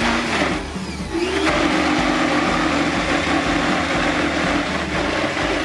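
Countertop blender motor running at high speed, blending a thick tofu and aquafaba batter. Its pitch wavers in the first second or so, then holds steady until it cuts off suddenly at the very end.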